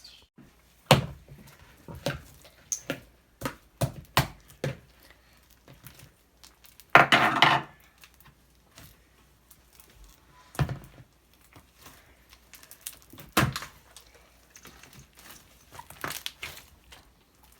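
Small objects being handled on a hard surface: scattered clicks and knocks, and a short crackling rustle about seven seconds in.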